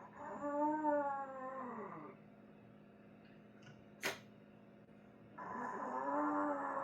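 Two long, wavering animal calls, each about two seconds and sliding down in pitch at the end, with a single sharp click between them.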